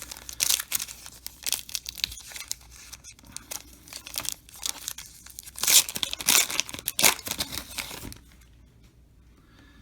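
A foil trading card pack wrapper being torn open and crinkled: a dense run of sharp crackles and rips, loudest about two-thirds of the way through, stopping abruptly near the end.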